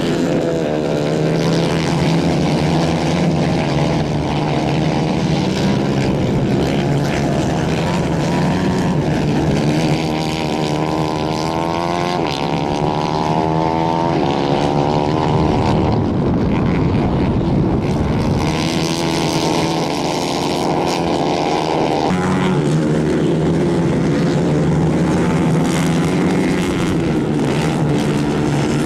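Several 150 cc racing kart engines running hard together, their pitch rising and falling as the karts accelerate and lift off through the corners, with several engine notes overlapping.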